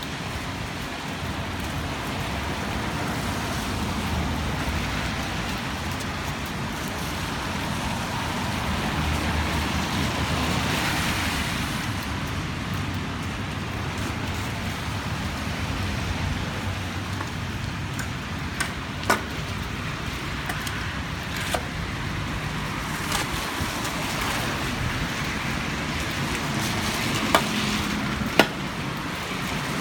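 Road traffic noise: a steady hum and rumble of passing vehicles, swelling for a few seconds, with a few sharp clicks in the second half.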